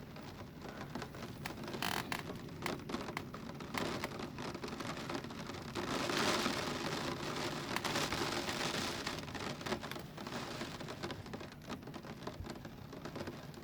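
Heavy rain of a gusty thunderstorm squall, with many sharp drop impacts on surfaces; it swells louder about six seconds in and eases off near the end.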